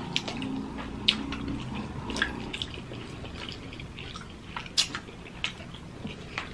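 Close-miked mukbang eating sounds: chewing, with sparse wet mouth clicks and lip smacks, the sharpest one about five seconds in.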